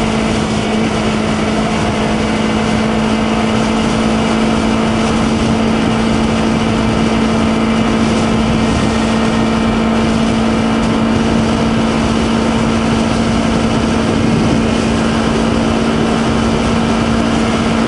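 2020 Honda CBR250RR's parallel-twin engine running at a steady pitch while cruising at about 100 km/h, under a constant rush of wind and road noise.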